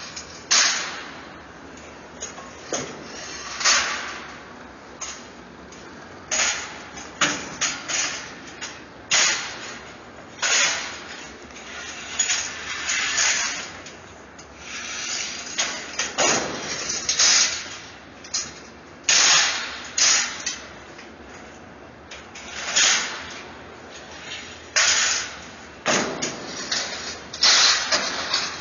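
Steel crowd-control barricades clanking and scraping against one another and the concrete floor as they are handled and stacked: repeated, irregular metallic hits and rattles, one every second or two.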